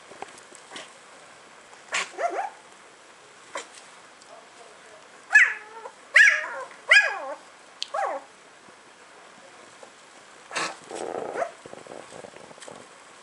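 Newborn puppies squealing and whimpering: short high cries that fall in pitch, the loudest cluster from about five to eight seconds in, then a rougher, grunting cry near the end.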